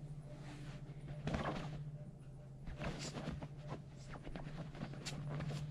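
Yorkshire terrier puppy scrabbling and pouncing on a pillow: soft rustling of the pillowcase fabric with scattered small scratches and bumps, the loudest about a second in and again around three seconds in, over a steady low hum.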